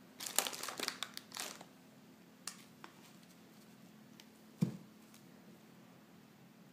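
Plastic food wrapping crinkling as packaged groceries are handled, mostly in the first second and a half, with a couple more crackles soon after. A single dull thump about four and a half seconds in.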